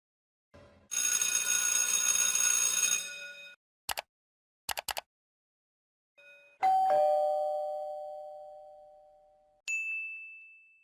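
A run of stock sound effects. First a noisy sound with ringing tones for about two and a half seconds, then a few sharp clicks. Then a two-note doorbell chime, ding-dong, high note then low, fading away over about three seconds, and near the end a short high beep.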